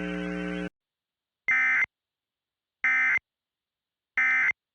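A low steady hum cuts off under a second in, then three short, shrill electronic data bursts follow about a second apart: Emergency Alert System end-of-message (EOM) header tones, marking the close of the alert.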